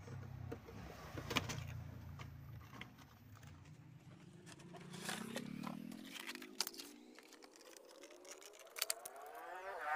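Cardboard box and plastic packaging handled and opened, with a few sharp clicks and light rustling. Behind them an engine hums low, then rises steadily in pitch through the second half.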